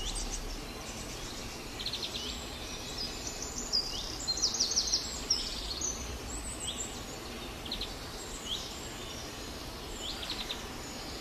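Small birds chirping in the background, a scattered run of short, high chirps and quick trills over a faint steady background noise.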